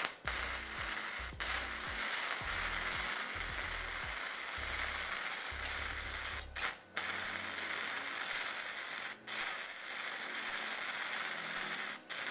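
Flux-core (gasless) wire welding arc from a SEDA MIG-200MDP welder, crackling and sizzling steadily as the bead is laid. The arc breaks off briefly about a second and a half in, around seven and nine seconds in, and near the end, then stops just after.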